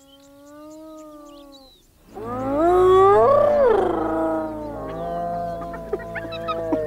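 Spotted hyenas whooping. One long, slightly rising call comes first, then from about two seconds in several overlapping calls rise and fall, loudest near the middle, over a steady low hum.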